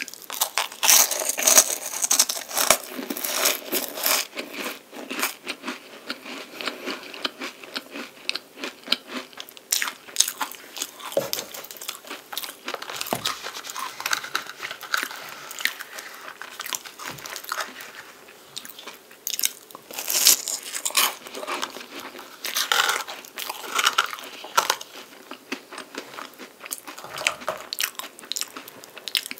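Close-up crunching and chewing of flaky puff pastry: crisp layers crackle with each bite and chew. The crunching is loudest in the first few seconds and again about two-thirds through, softer in between.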